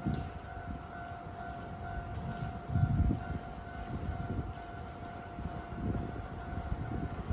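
Japanese railway level-crossing warning bell ringing continuously, its electronic tone repeating steadily, with a low rumble swelling and fading a few times beneath it.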